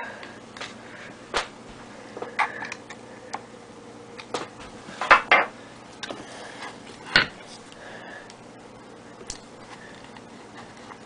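Metal parts of an Evanix Conquest air rifle's receiver being handled, giving a scattered series of sharp metallic clicks and clinks. The loudest come in a quick cluster about five seconds in and as a single click about two seconds later.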